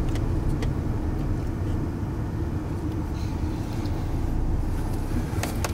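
Steady low rumble of a car in motion, engine and road noise heard from inside the cabin, with a few faint clicks.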